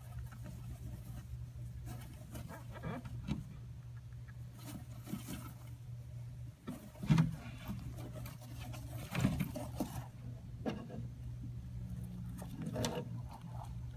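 Savannah monitor lizard scrambling with a feeder mouse in its jaws over loose fibrous substrate: scattered scratchy rustles of claws and bedding, with a louder knock about seven seconds in and a few more near nine and thirteen seconds. A steady low hum runs underneath.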